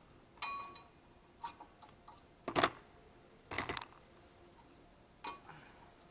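Metal brake parts clinking and knocking as they are handled and taken off the caliper bracket: about six separate knocks, one early on with a short metallic ring, the loudest two a little past the middle.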